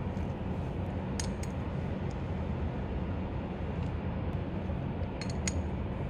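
A few light metallic clinks of a box-end wrench and the caliper's pin bolts and lock plate being handled: two just after a second in, one more soon after, and two near the end, over a steady low hum.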